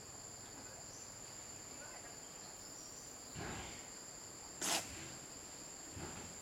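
Steady, high-pitched drone of insects, with a soft rustle a little past halfway and one brief sharp click about three-quarters of the way through.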